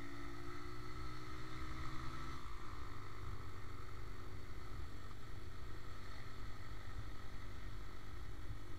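Motorcycle riding with heavy wind rumble on the microphone, the AKT TTR 125's single-cylinder engine note audible at first, falling slightly in pitch and fading out about two and a half seconds in as the bike eases off.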